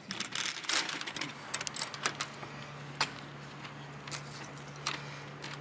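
Handling noise of an electrical starter harness, flexible metal conduit with a plastic connector, being fitted to the back of a power module: scattered small clicks and rattles, with a sharper click about three seconds in. A faint steady hum comes in about two seconds in.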